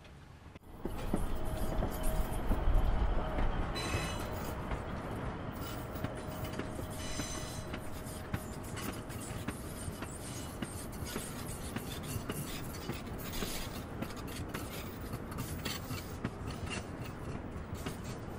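Loaded sugar cane train on a narrow-gauge cane railway passing close by. It is loudest with a low diesel locomotive rumble in the first few seconds, then a long string of cane bins rattles and clicks steadily over the rails, with a thin squeal from the wheels now and then.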